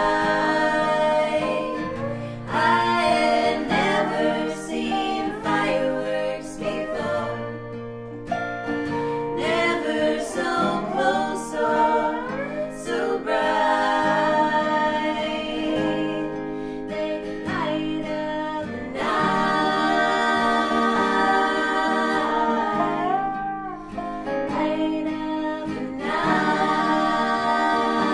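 Women singing in three-part harmony over acoustic guitar and dobro, an Americana song played live.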